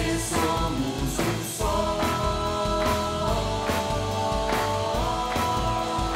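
Pop-rock song with a steady drum beat, bass and guitar, and singing that holds long notes.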